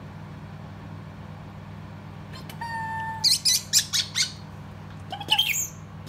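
A short steady whistled note, then a quick run of sharp parrotlet chirps, and another short burst of chirps near the end.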